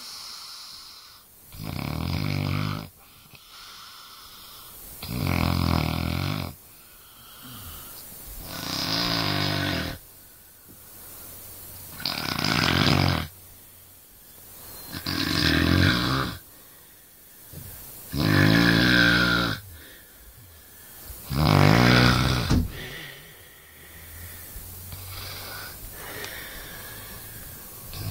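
Steady rhythmic snoring: seven loud snores, each about a second long and about one every three and a half seconds, with quieter breathing between them. Near the end the loud snores pause for several seconds.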